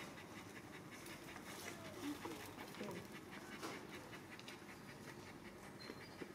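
Dog panting faintly, with a few small clicks and rustles from the dog being handled.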